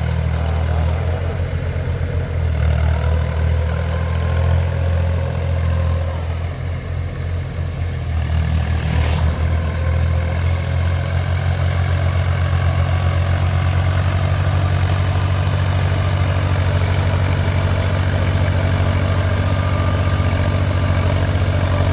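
Iseki 3510 tractor engine running steadily under load as it drives its cage wheels and a levelling board through flooded paddy mud. The engine dips briefly about seven seconds in, and there is a short hiss about nine seconds in.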